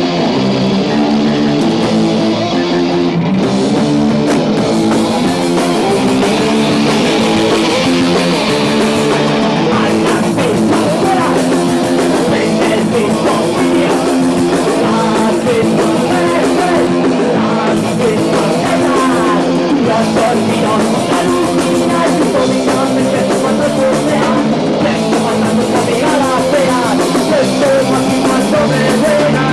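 Live rock band playing a song loudly: electric guitar and drum kit.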